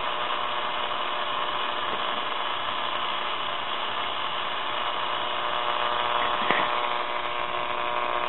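Steady AM static hiss from a pocket transistor radio, with faint steady hum tones in it: no carrier yet from the wireless record player's tube oscillator, which is still warming up. A small click about six and a half seconds in.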